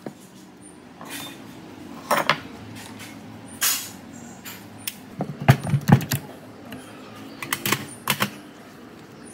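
Irregular clinks and knocks of tools and metal parts being handled, in separate clusters with the loudest run of knocks about halfway through.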